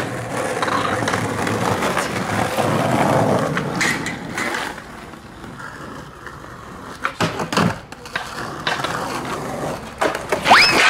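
Skateboard wheels rolling loudly over pavement, easing off after about four seconds, with several sharp clacks of the board striking the ground and one heavier thud about seven and a half seconds in. A short rising squeal near the end.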